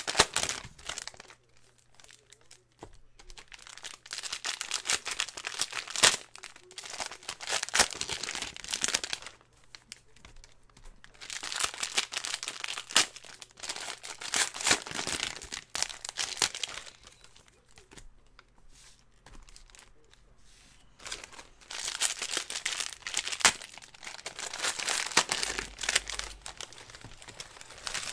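Foil trading-card pack wrappers being torn open and crinkled by hand, in three long stretches of rustling with short quieter gaps between.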